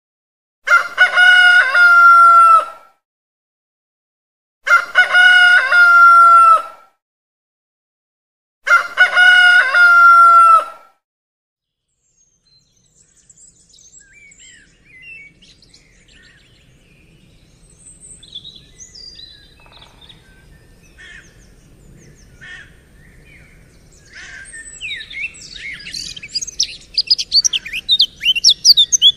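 A rooster crowing three times, each crow about two seconds long, about four seconds apart. Then small birds chirping, faint at first and growing busier and louder near the end.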